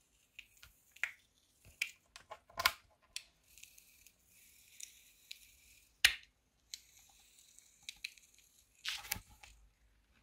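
Soft foam over foam beads pressed and squished by hand: a fine crackling with scattered squelchy clicks, sharper ones about 2.5, 6 and 9 seconds in.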